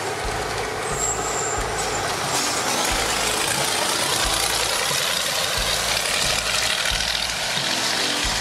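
Heavy eight-wheeled off-road rally truck driving fast on a dirt forest track: diesel engine running under load, with a pulsing low rumble, and tyres churning loose dirt and gravel.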